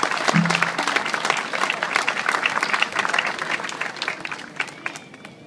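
Crowd applauding, many hands clapping, dying away near the end.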